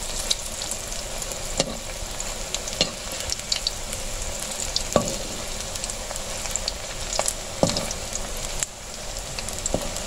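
Gram-flour pakoras deep-frying in hot oil in a wok: a steady sizzle with scattered crackles. A slotted spoon stirs and turns them, giving a few sharp clicks against the pan.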